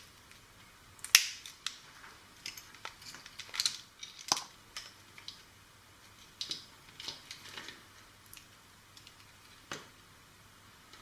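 Scattered sharp clicks and taps of small plastic parts being handled while a toy walkie-talkie is worked on, with a few louder clicks about a second in, around four seconds in and near the end.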